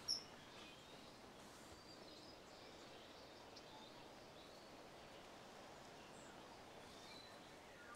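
Near silence: faint steady background hiss, with a few faint high chirps.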